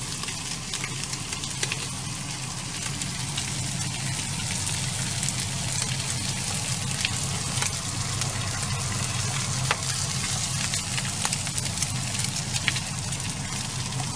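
Slices of pork belly sizzling in a frying pan, with scattered sharp pops and crackles of spitting fat, alongside a pot of water at a rolling boil. A steady low hum runs underneath.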